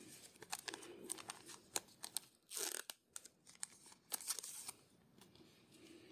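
Foil booster-pack wrapper crinkling and rustling as the cards are pulled out of it: a string of small crackles with two louder rustles, about two and a half and four seconds in.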